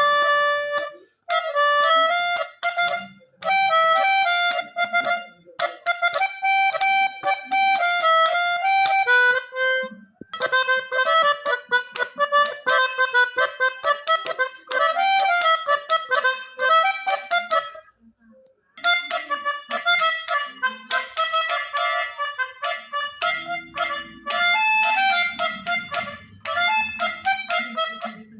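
Pianika (melodica) playing a melody in phrases of quick notes, with a short pause about two-thirds of the way through.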